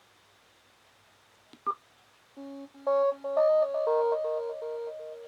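Sonim XP5 cell phone ringtone: after a pause and a short blip, a new ringtone starts about two seconds in, an electronic melody of steady synthesized notes.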